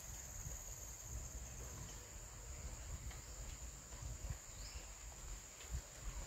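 Steady, high-pitched chorus of insects, a constant shrill drone, over a low uneven rumble.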